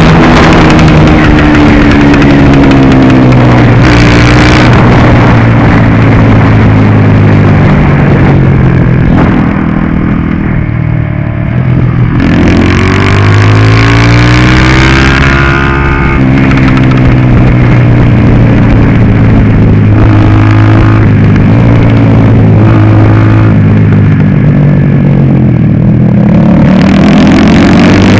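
A 150 cc go-kart engine heard from on board, running hard around the track. Its pitch drops as the driver lifts off, most deeply about ten seconds in, then rises again as it accelerates, with another lift and rise near the end.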